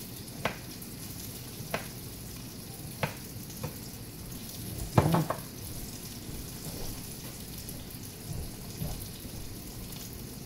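A knife chopping green onion tops on a bamboo cutting board: a few separate sharp chops, then a louder clatter about five seconds in as the knife is set down on the board. Underneath runs the steady sizzle of a salmon fillet frying in oil in a pan.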